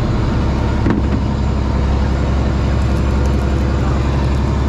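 Fishing trawler's engine running steadily with a deep, even drone, and a short knock about a second in.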